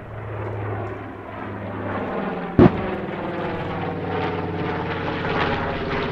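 B-25 Mitchell's twin radial piston engines droning as it flies a pass, growing louder over the last few seconds. A single sharp bang comes about two and a half seconds in.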